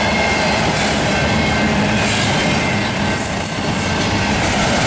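Loaded intermodal freight cars rolling past at close range: a steady, loud rumble of steel wheels on rail, with a faint high wheel squeal about three seconds in.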